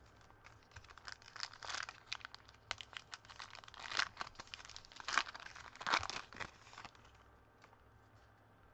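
Foil wrapper of a baseball trading-card pack being torn open and crinkled in the hands, in a string of irregular crackling bursts that grow louder around the middle and stop about seven seconds in.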